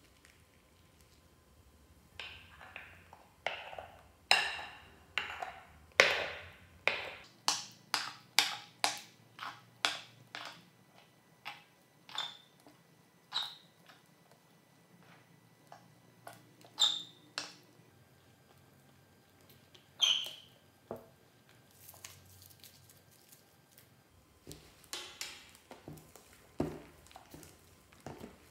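Foamy slime being stirred and kneaded by hand in a glass bowl: irregular wet clicks and pops, a few with a brief high squeak, starting about two seconds in.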